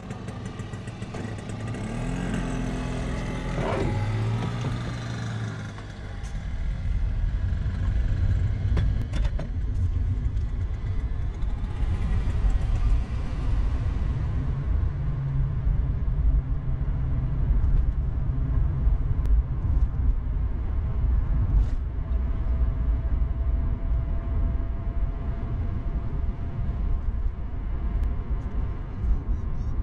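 Honda Fit e:HEV hybrid car driving at a steady cruising speed, with a continuous low rumble of tyres and road. The rumble is quieter and more varied for the first few seconds, then louder and even.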